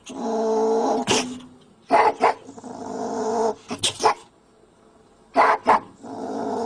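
A dog vocalizing: three drawn-out pitched calls, each about a second long, with short sharp barks or yelps between them.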